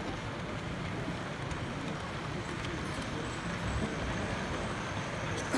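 Steady hall ambience at a model railway exhibition: an even background rumble with a low murmur of distant voices, and a sharp knock right at the end.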